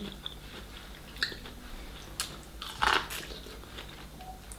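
Close-up eating sounds: chewing and biting into seafood, with short wet mouth clicks and smacks and a louder burst about three seconds in.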